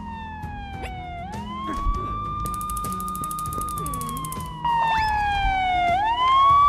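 Ambulance siren wailing. Its pitch slides slowly down, swoops quickly back up and holds, then slides down and swoops up again near the end, over soft background music.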